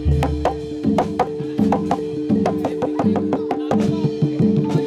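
Jathilan gamelan accompaniment: a driving drum pattern with sharp strikes about three times a second and low drum notes that step in pitch, over a steady held tone.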